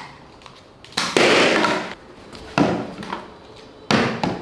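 Balloons popping: three sharp bangs about a second and a half apart, each with a short noisy tail.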